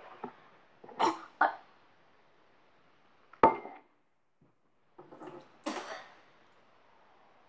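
A girl coughing and gagging in short, irregular bursts, her reaction to a foul-tasting jelly bean. One sharp, loud burst comes about three and a half seconds in.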